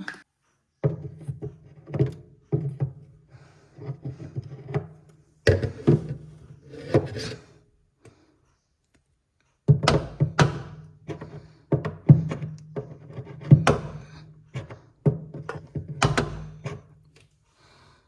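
Irregular knocks, clicks and scrapes of a thin brush poked and worked into the clogged water drain hole in a fridge's plastic inner back wall.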